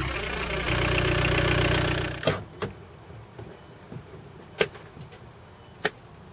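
Volkswagen Golf's engine running, then switched off about two seconds in. A few sharp clicks and knocks follow as the door is opened and someone steps out.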